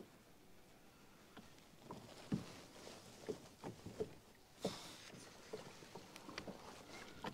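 Faint scattered knocks and taps of gear on a fishing kayak, over a low hiss of water, while a hooked kokanee is reeled in. A brief louder rustling noise comes about four and a half seconds in.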